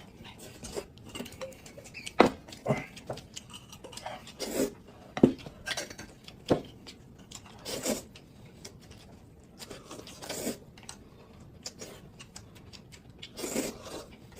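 Eating noodles at a table: utensils clicking against bowls and dishes now and then, with a few short noisy bursts of eating between the clicks.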